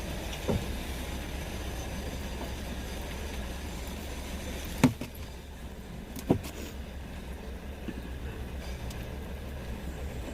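Steady low rumble of a vehicle, broken by a few short sharp clicks, the loudest about halfway through and another a second and a half later.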